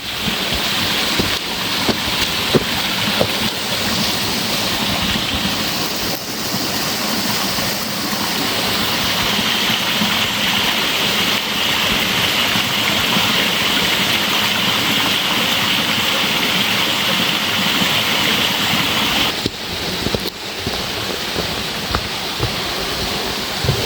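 Steady rushing of a fast-flowing stream over rocks, growing a little louder about eight seconds in.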